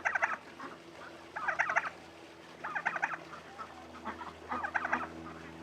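Poultry calling in short warbling bursts, about four of them at roughly one-and-a-half-second intervals, over a faint low steady hum that starts about half a second in.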